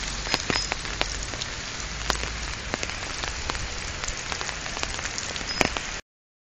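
Steady rain falling on a wet road and its surroundings, an even hiss dotted with sharp ticks of single drops. The sound cuts off suddenly near the end.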